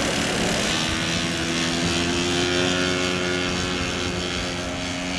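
Large-scale radio-controlled model warbird's engine and propeller running at high power for the takeoff roll. It gives a steady engine tone whose pitch climbs slightly over the first couple of seconds.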